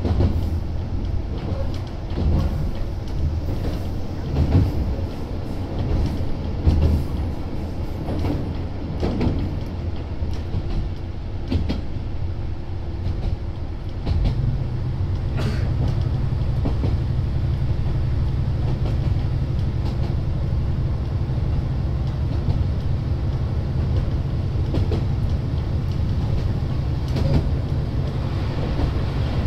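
Isumi 200-series diesel railbus's engine idling while the car stands still, with a few knocks and clicks in the first half. About halfway through, the engine note steps up into a steadier, slightly louder drone.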